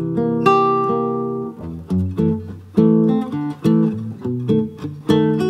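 Acoustic guitar playing a melody of plucked notes and chords over changing bass notes.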